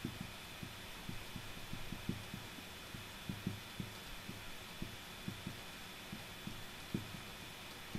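Dry-erase marker writing on a whiteboard: a string of soft, irregular low taps and knocks as the pen strokes press on the board, over a faint steady hum.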